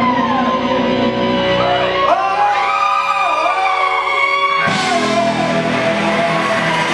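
Live punk rock band playing an instrumental stretch, with electric guitar notes sliding and bending up and down over the band.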